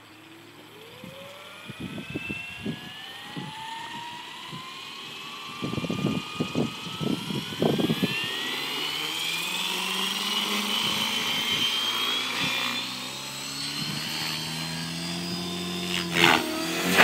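Align T-Rex 600E Pro electric RC helicopter spooling up. The motor and rotor whine climbs steadily in pitch for about ten seconds, then holds at head speed, with gusts of rotor wash buffeting the microphone along the way. Near the end it lifts off and the sound surges louder.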